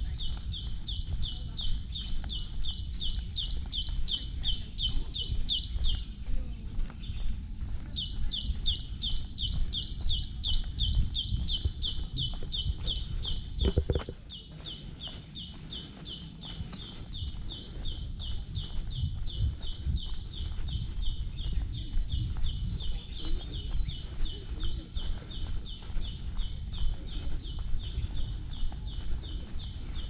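A high, rapid chirping call repeated very evenly, about four or five chirps a second, breaking off for about two seconds early on and then running on, with short, thinner bird chirps scattered above it. A low rumble sits underneath throughout.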